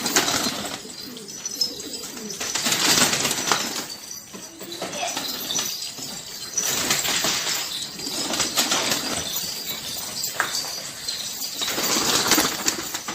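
A flock of baladi (local) pigeons beating their wings, coming in about four surges of clattering a few seconds apart.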